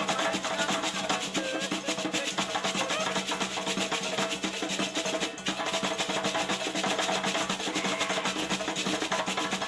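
Traditional Liberian dance drumming: an ensemble of drums playing a dense, rapid, steady beat.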